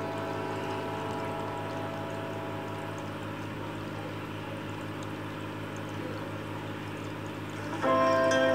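Steady pouring sound of running water with a low steady hum beneath, under a sustained chord of background music that fades over the first few seconds; music comes back in louder near the end.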